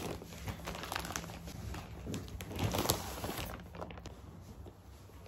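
Scattered light knocks and rustling of household items being handled in a small room, loudest about two to three seconds in.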